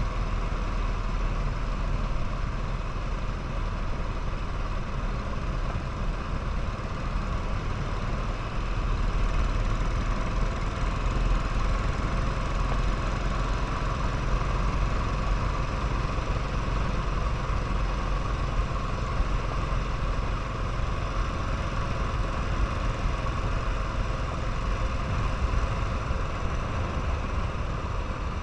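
Royal Enfield motorcycle engine running steadily, with a heavy low rumble.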